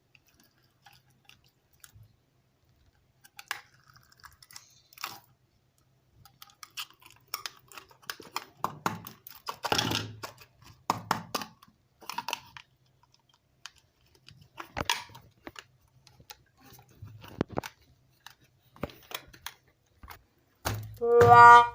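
Slime being handled, making irregular sticky clicks and crackles, some louder than others. A loud musical tone comes in near the end.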